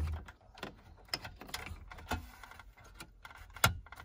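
Plastic wiring-harness connectors and loose cables being handled and plugged together, giving a run of small irregular clicks and rattles, with one sharper click a little before the end.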